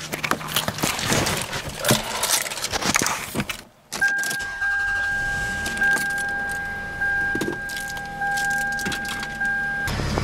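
Keys jangling and handling clicks as someone settles into a car. Then a car's warning buzzer sounds as one steady tone for about six seconds with the key in the ignition, and cuts off near the end as the engine starts with a low rumble.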